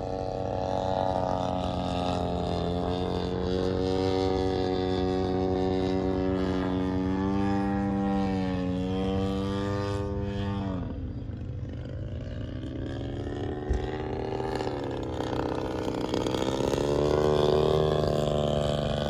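Radio-controlled model airplane's engine and propeller droning in flight, pitch and loudness rising and falling as it manoeuvres. About halfway through the pitch drops sharply and the sound fades for a moment, then builds again, loudest near the end.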